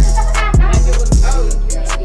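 Hip hop backing music with a heavy bass and a kick drum about every 0.6 seconds, with a rapped or sung vocal line over it.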